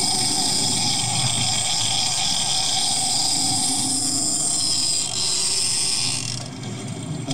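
Shimano Tiagra 50LRS lever-drag reel giving line under drag as a hooked southern bluefin tuna runs: a steady, high-pitched whine that stops about six and a half seconds in, over a low rumble of boat and water.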